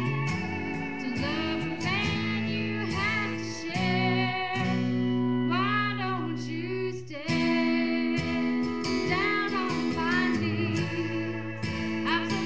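Music: a woman singing over a guitar-backed accompaniment with steady bass notes.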